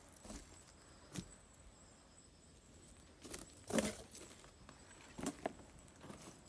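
Footsteps and knocks on a plywood treehouse deck: a few scattered soft steps, the loudest nearly four seconds in.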